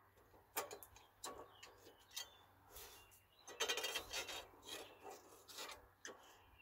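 Metal hand tools scraping and clicking against the front brake caliper parts of a Suzuki LT250S quad: a series of short, faint scrapes and knocks, with a longer scrape about three and a half seconds in.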